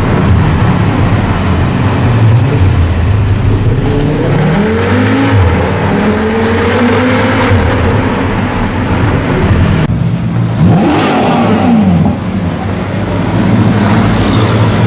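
Sports car engine revving and accelerating hard. Its pitch climbs a few seconds in, dips briefly near ten seconds, then sweeps up and down sharply about eleven seconds in.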